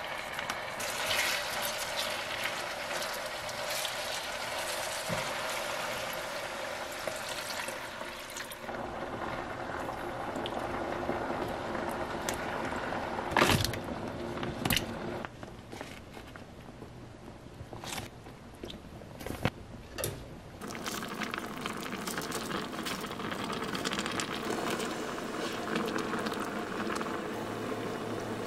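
Malatang sauce and broth in an electric multicooker pot: liquid pouring and bubbling, with several short knocks from ingredients and a wooden spoon in the pot, mostly through the middle.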